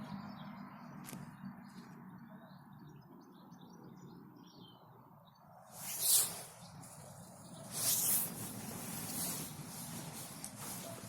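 Faint songbird chirps in a spring garden, with two short louder bursts of rustling noise about six and eight seconds in.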